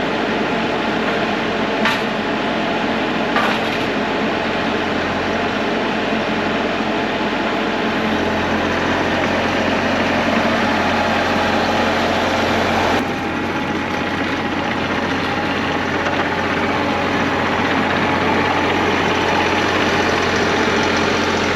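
Bobcat E42 mini excavator's diesel engine running steadily, with two short clicks in the first few seconds and a shift in its sound about thirteen seconds in.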